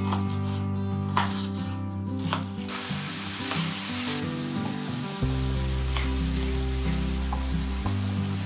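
A few knife cuts through a red bell pepper on a wooden board, then diced pepper and minced meat sizzling in a frying pan as they are stirred with a wooden spatula. Background music plays throughout.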